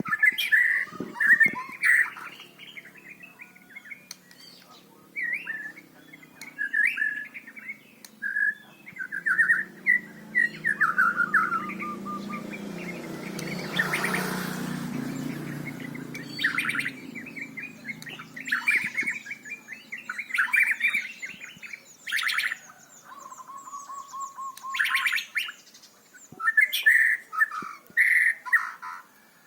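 White-rumped shama singing loudly, with a run of varied phrases of whistles, fast trills and rapid chatter broken by short pauses. A low rumble swells and fades about halfway through.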